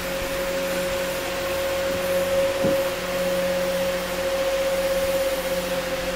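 A running electric machine makes a steady whir: a constant mid-pitched whine over an even hiss, with no change in speed.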